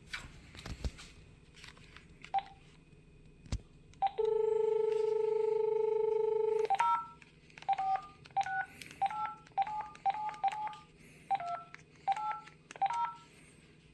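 Landline telephone: a few clicks, then a steady dial tone for about two and a half seconds, cut off as a number is keyed in with about a dozen quick touch-tone (DTMF) beeps.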